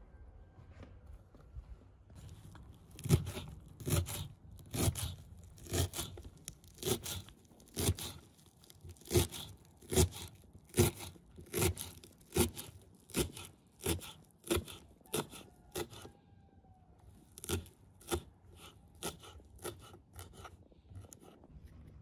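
Knife chopping fresh green herbs on a wooden cutting board: a run of sharp chops about two a second, each a crunch of leaves and a knock on the board. The chopping starts a few seconds in, pauses briefly about two-thirds of the way through, then resumes.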